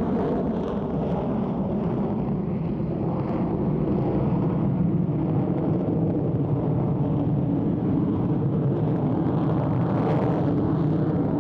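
Grumman F-14 Tomcat's twin afterburning turbofan jet engines at full afterburner during a wave-off climb with gear and hook down. The sound is a loud, steady jet rumble.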